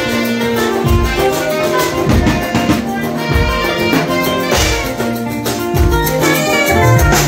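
Live band playing an ohangla instrumental passage: drum kit keeping a fast, even beat on the cymbals and drums under sustained saxophone and keyboard lines.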